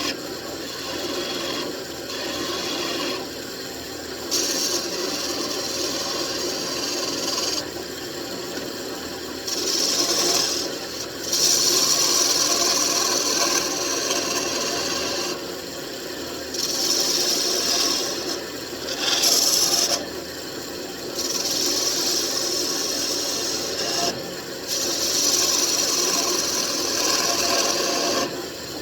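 Wood lathe running with a steady hum while a turning chisel cuts the spinning mahogany. The cutting comes in repeated passes of one to three seconds each that add a higher scraping sound over the hum.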